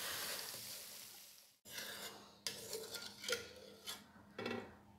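Masala frying in oil in a kadai, sizzling as a wooden spoon stirs it and fading out. After a break about a second and a half in, a wooden spoon stirs and scrapes through watery gravy in the pan in short strokes with light clicks.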